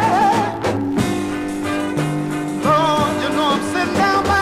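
Blues song recording: a lead melody that wavers with vibrato over a band backing of sustained chords and low notes.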